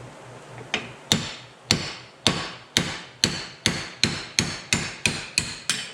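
A hammer striking a metal part about a dozen times, the blows coming steadily faster, each with a short ringing tail.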